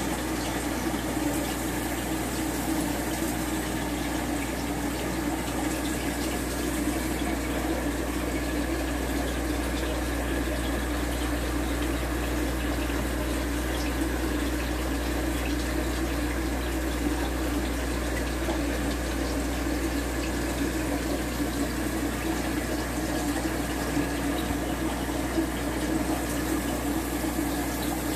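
Aquarium filtration running: a steady wash of moving water over a constant low hum.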